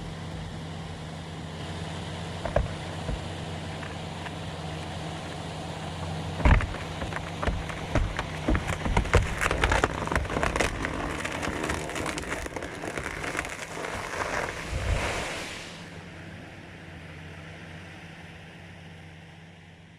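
A felled tree cracking and crashing down through the forest canopy: sharp snaps, then a long rush of splintering branches and leaves ending in heavy thuds, over a two-stroke chainsaw idling steadily underneath.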